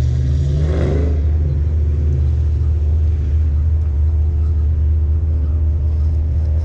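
Motor vehicle engine running steadily with a deep low end, its pitch rising briefly in the first second as if revved.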